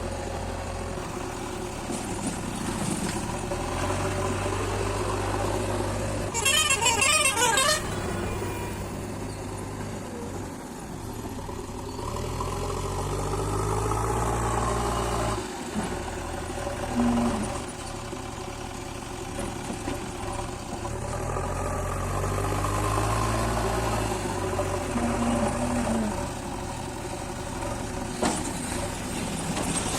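Diesel engine of a JCB backhoe loader running, rising in revs twice as the machine works. A vehicle horn sounds loudly for about a second and a half a few seconds in.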